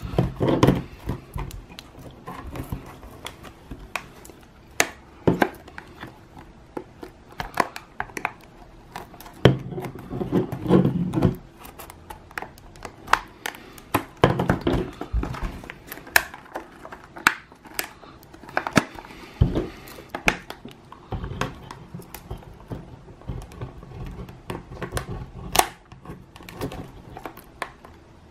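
Plastic blister packaging being handled and cut open with a small folding pocket knife: irregular sharp clicks and taps on the plastic and card, with short bursts of rustling and crinkling.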